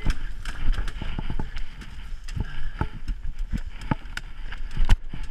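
Irregular crunches and knocks of footsteps and movement through brush, several a second, over a low steady rumble.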